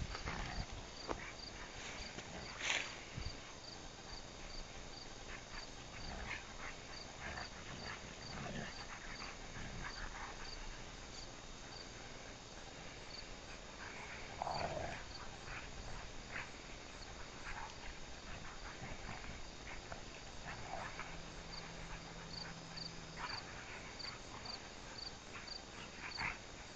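Two dogs play-wrestling in grass, faint and distant, with scattered rustles and a short dog vocalisation about halfway through. A cricket chirps steadily in the background, about two chirps a second.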